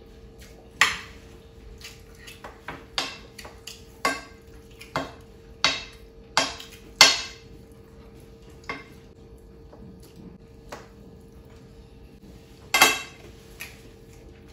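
Spoons scraping and clinking against a large plate as jollof rice is scooped up, in about a dozen irregular strokes. The loudest strokes come about a second in, around the middle and near the end, over a faint steady hum.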